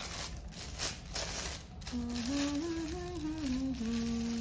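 A woman humming a short tune of held, stepping notes, starting about two seconds in. Before it there is rustling of tissue wrapping paper being handled.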